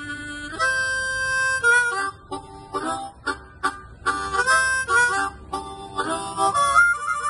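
A Hohner Blues Harp, a ten-hole diatonic harmonica, being played: a chord held for about a second, then a quick run of short notes and chords, settling on held notes near the end.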